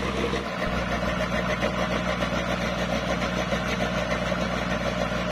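Sand-dredging pump engine running steadily, a constant droning hum.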